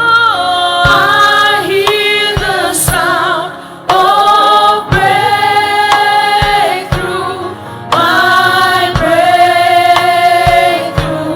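Gospel music: a choir and a female voice singing long, held lines over accompaniment, with occasional low drum hits.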